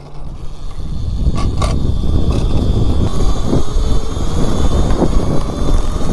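Electric mini bike with a QS138 motor accelerating hard from low speed. Wind rushes over the camera microphone, rising quickly and then holding loud, with a faint high electric whine above it.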